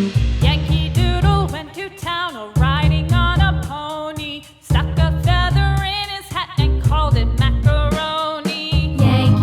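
Upbeat background music: a bouncy, repeating bass line under a wavering, gliding lead melody, the bass dropping out briefly a few times.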